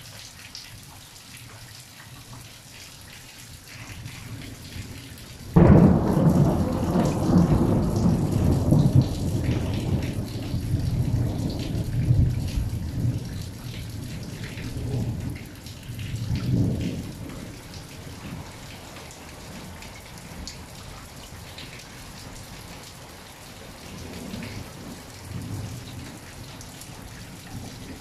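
Steady rain, then about five and a half seconds in a sudden loud thunderclap that rolls on as deep rumbling for about ten seconds, dying away in further weaker rolls while the rain keeps falling.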